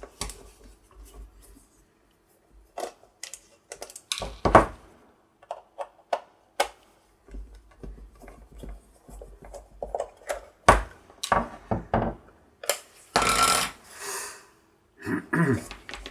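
Phillips screwdriver undoing the screws in the plastic base of an LED disco light: scattered clicks, knocks and scrapes of the tool and the plastic housing being handled, with a longer rasp near the end.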